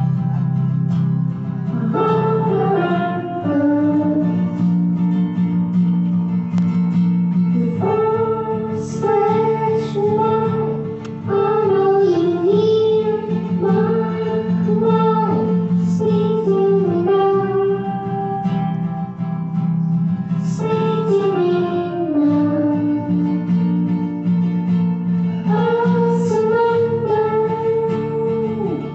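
A child singing a slow melody over acoustic guitar and sustained keyboard chords.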